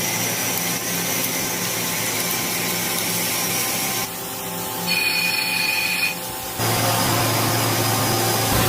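Machine tool or power tool running with a steady, noisy hum. The sound changes abruptly a little past the middle, with a high steady whine for about a second before the hum returns.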